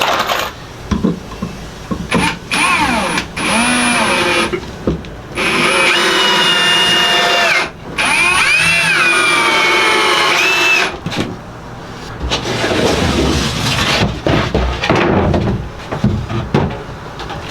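Handheld electric power tool run in repeated bursts, its motor speeding up and winding down with each trigger pull, with two longer runs in the middle. Rougher, uneven working noise follows near the end.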